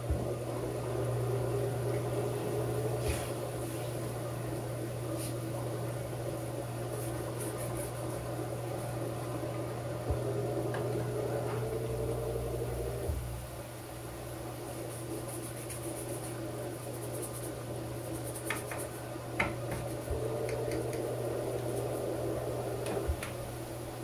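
Panasonic 16 kg top-load washing machine on its spin cycle with a load of wet towels: a steady motor hum under a whine that slowly rises in pitch, drops away about halfway through and builds again near the end. This is the pulsed spin, where the drum picks up speed in spurts. A few faint clicks come from the machine.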